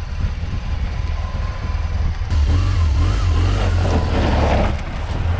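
Motor vehicle running: a steady low rumble that grows louder from about two and a half to five seconds in.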